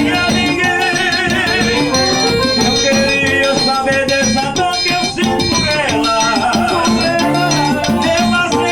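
Accordion playing a dance tune with shaker and drum rhythm underneath.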